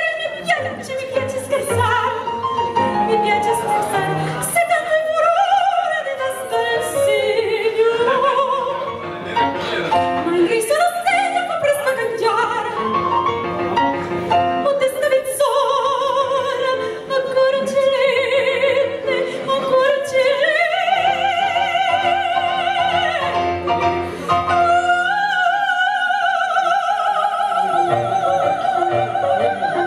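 A woman singing an operatic aria into a microphone with strong vibrato, the line moving freely at first, then rising to long held high notes in the second half.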